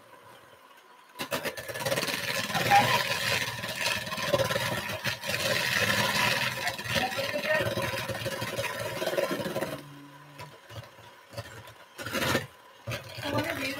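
Electric stand mixer switched on and running for about eight seconds while beating gingerbread dough, then switched off, with a short low hum as it stops. A short clunk comes near the end.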